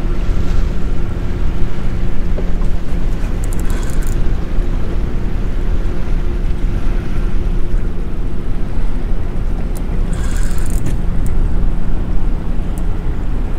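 Wind buffeting the microphone over a steady low engine hum that fades about halfway through, with two brief bursts of rapid high clicking, around four and ten seconds in.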